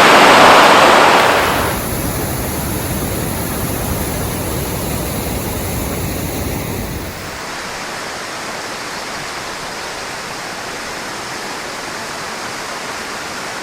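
Steady rush of water from river rapids and falls, loud at first, then dropping in level about two seconds in and again about seven seconds in.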